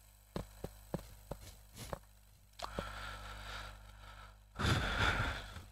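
A string of light clicks, about six in the first two seconds, from a pen tapping on the writing screen. A soft rustle follows, loudest near the end.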